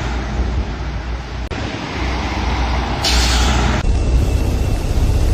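Heavy vehicle rumbling steadily, with a short burst of air hiss about three seconds in that cuts off suddenly.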